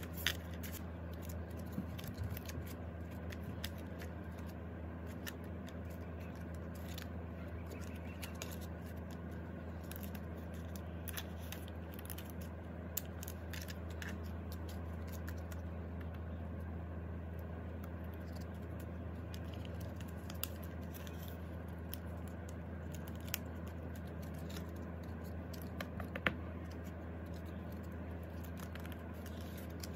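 Photocards being slid into clear plastic binder sleeves: scattered small crinkles and clicks of handled plastic over a steady low hum.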